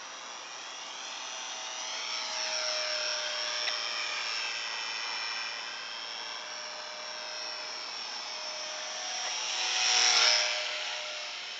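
Small electric motor and propeller of a 40 g radio-controlled park-flyer plane whining in flight, its tone sweeping as the plane moves about, growing loudest in a close pass about ten seconds in.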